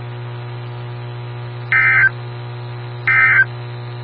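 Emergency Alert System end-of-message data bursts: two short, identical, buzzy warbling tone bursts about a second and a half apart, over a steady electrical hum. These are the audio signal that closes an alert.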